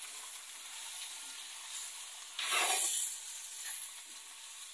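Pork rib pieces sizzling as they fry in oil in a hot clay cazuela, while a metal utensil turns them. The sizzle swells louder for about half a second near the middle.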